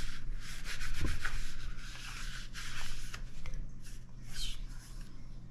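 Hands rubbing and wiping the inside of a KISS Sidewinder rebreather's plastic DSV (dive surface valve) tube while cleaning it: an irregular scratchy rubbing, busiest in the first few seconds.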